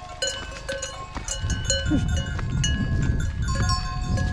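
Many livestock bells on a moving flock of sheep, clanking irregularly at several different pitches. A low rumble joins them about a second and a half in.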